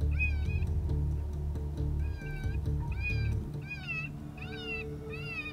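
Electronic predator call playing a rabbit distress sound: repeated high, wavering cries, about two a second, each rising and then falling in pitch. Low background music runs underneath.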